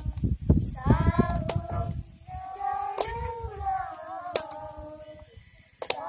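A group of schoolchildren singing a song together without accompaniment, in long held notes. Low rumbling noise on the microphone in the first two seconds, and sharp clicks about every second and a half.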